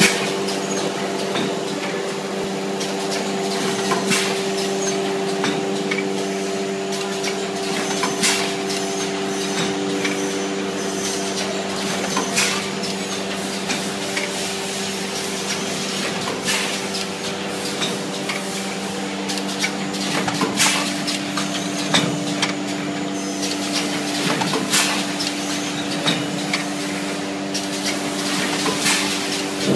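An automatic blister packaging machine running: a steady electric motor hum, with a sharp clack about every four seconds as the machine strokes through each cycle.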